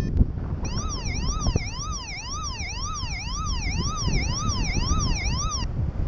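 Paragliding variometer sink alarm: an electronic siren-like tone sweeping up and down about twice a second for about five seconds, stopping near the end. Heavy wind noise on the microphone runs underneath.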